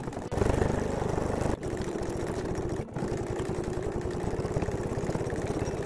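Janome MC9450QCP computerised sewing machine running at speed, its needle stitching rapidly along the edge of a layered fabric bag handle. It starts shortly after the beginning, pauses briefly twice in the first three seconds, then runs on steadily until near the end.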